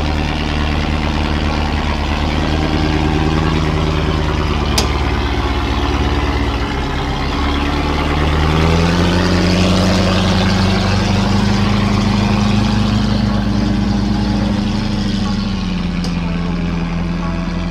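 Land Rover Discovery V8 engine pulling at low revs as the truck crawls up a rocky step, the revs rising about eight seconds in and holding higher before easing back near the end. A sharp click about five seconds in.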